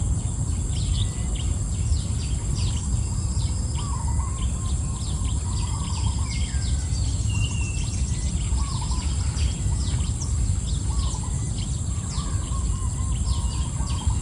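Birds chirping and calling, with short high chirps and warbling notes, over a steady high-pitched insect drone. A constant low rumbling noise underlies it all.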